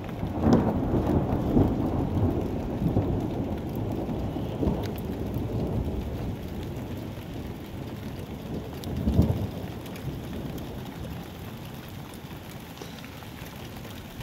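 Thunder from a nearby lightning strike rumbling, loudest in the first couple of seconds and slowly dying away, with a second short burst about nine seconds in. Rain falls steadily throughout.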